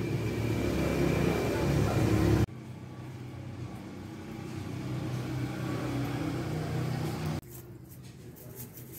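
Sauce poured in a thin stream into a glass bowl of marinade, a hissing splash over a steady low motor-like hum. The sound changes abruptly about two and a half seconds in and again about seven and a half seconds in.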